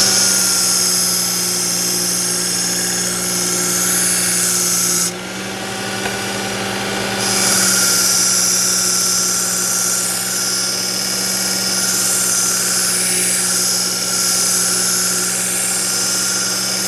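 Work Sharp electric belt knife sharpener running steadily, its abrasive belt grinding the steel edge of a kitchen knife with a high hiss over the motor hum. The grinding hiss stops for about two seconds around five seconds in, as the blade comes off the belt, then resumes. The edge is being reground to a new 25-degree angle.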